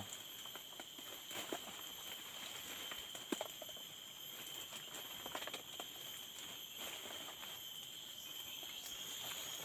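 Steady high-pitched insect drone, with scattered soft rustles and clicks of coffee branches and cherries being handled as ripe coffee cherries are hand-picked; one sharper click a little over three seconds in.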